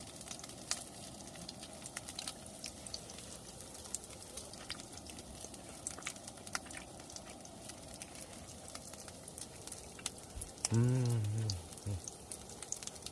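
Food sizzling in a frying pan, with a steady hiss and scattered crackling pops. About eleven seconds in, a low man's voice gives a brief hum lasting about a second.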